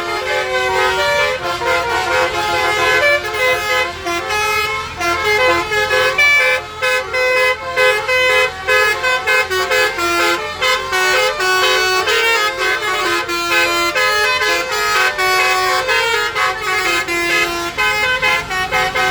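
A bus's basuri multi-tone horn (telolet horn) playing a fast melody of short stepping notes, on and on without a real pause.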